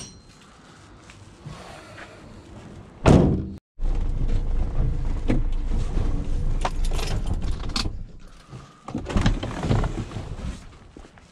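A single heavy thunk at a scrap van about three seconds in. After a brief cut-out comes a steady low rumble with scattered knocks and clatter.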